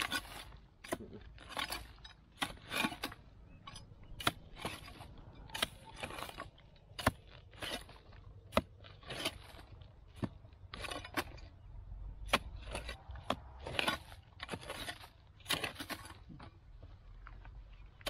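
A hoe chopping again and again into dry, hard soil, each blow a sharp strike followed by a brief scrape of loose earth, at an uneven one or two blows a second. The strikes stop a couple of seconds before the end.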